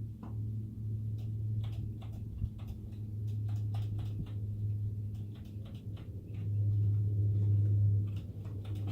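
Scattered light clicks and handling sounds from a cordless drill whose trigger is worked while it won't run: its battery is dead. A steady low hum runs underneath, louder in the last couple of seconds.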